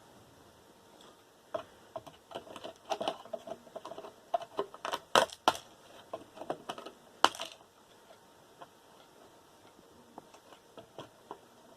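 Clicks, taps and light knocks of small parts being handled while a desktop computer is taken apart for scrap, the loudest few around five seconds in and a sharp one a little after seven seconds.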